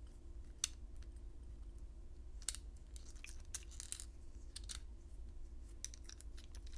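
Faint, scattered small metallic clicks and ticks from a padlock being handled and closed during reassembly, over a low steady hum.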